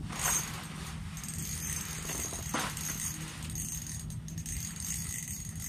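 Small rattling and handling sounds of fishing tackle being worked by hand, strongest twice, about a third of a second in and again about two and a half seconds in, over a steady low hum and a faint high whine.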